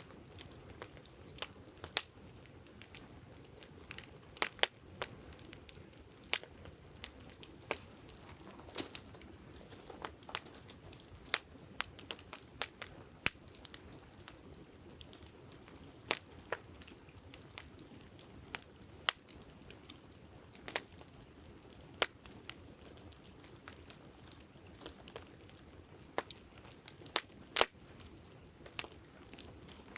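Campfire crackling: irregular sharp pops and snaps, several each second, over a steady low rush.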